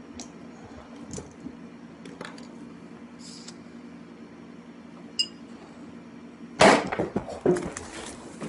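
Small clicks and scrapes of hands working the cork of a sparkling-wine bottle, over a steady low hum. About six and a half seconds in comes a sudden loud burst as the cork pops, followed by a few more knocks.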